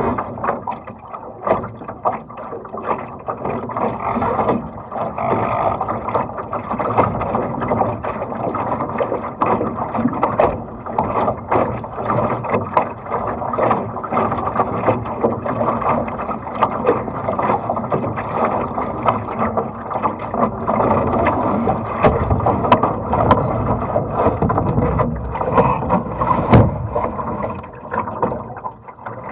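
Water rushing and splashing along the hull of a small racing sailing dinghy under way, with frequent short, sharp slaps and knocks.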